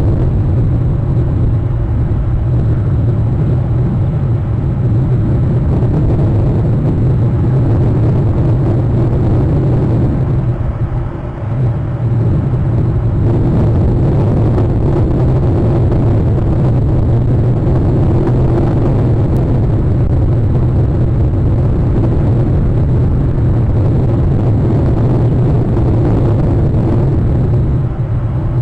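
Steady low rumble that dips briefly about eleven seconds in.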